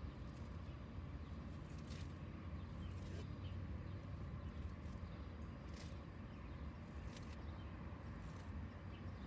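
Weeds being pulled from grass by hand: a few short, faint crackles as stems and roots tear, over a steady low rumble.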